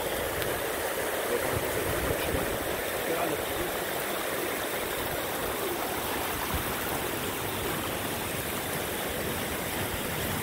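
Muddy floodwater rushing along paved paths and spilling down stone steps: a steady, unbroken rushing noise.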